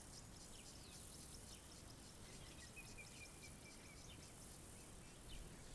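Quiet savanna ambience: faint, scattered bird chirps and calls over a soft, steady background hiss, with one thin held note lasting about a second around the middle.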